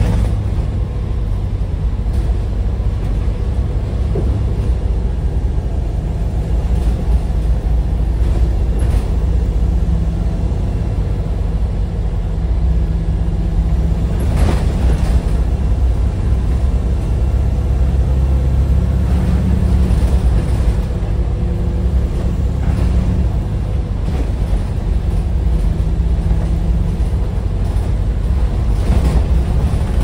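Diesel engine and turbocharger of First Bradford single-deck bus 69571 pulling along, heard from inside the passenger saloon: a steady low drone with a turbo whine over it. A few sharp knocks and rattles come through, about a third and halfway in and again near the end.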